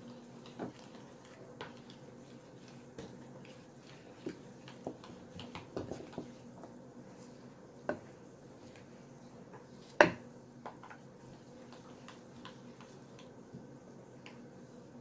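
Slime being stirred in a bowl with a wooden spoon: scattered soft clicks and knocks of the spoon against the bowl, with one sharp, much louder knock about ten seconds in.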